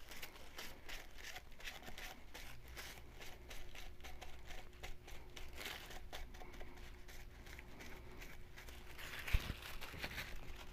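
Tissue paper rubbing and crinkling against a ceramic mug as gold leaf is burnished onto it, a faint continuous rustle of short strokes, with one sharp knock about nine seconds in.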